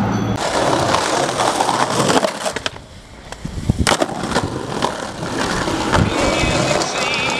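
Skateboard wheels rolling over brick pavement, a rough rattling rumble, with a couple of sharp clacks of the board about four seconds in.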